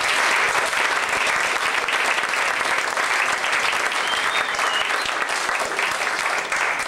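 Audience applauding after a poem, many hands clapping steadily and easing off near the end.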